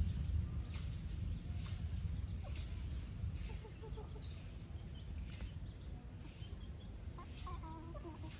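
Free-range chickens clucking as they forage, a few short clucks about four seconds in and a run of clucks near the end, over a low steady rumble.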